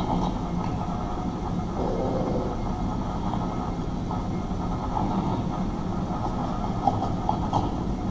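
A steady low rumbling noise with a few faint, scattered knocks over it.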